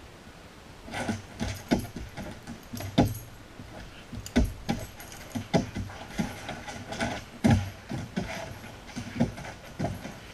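Two Labradors scrambling after bubbles on a wooden floor: irregular clicks, knocks and scuffs of claws and paws, with collar tags jangling, starting about a second in.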